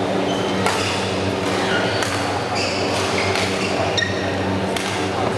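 Badminton play: sharp cracks of rackets hitting the shuttlecock and short squeaks of court shoes on the floor, over a steady low hum in the hall.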